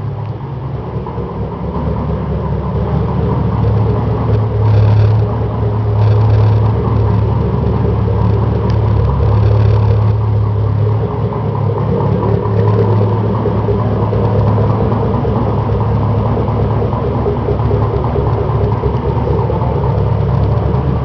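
Ford F-100 pickup's V8 engine rumbling steadily at idle, swelling briefly a few times as the throttle is lightly blipped.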